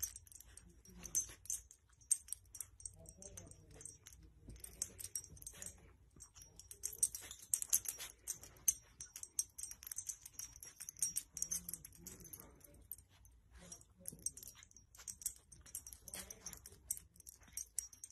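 Faint, irregular clicking and rustling as a puppy noses and sniffs at a baby wrapped in a soft blanket.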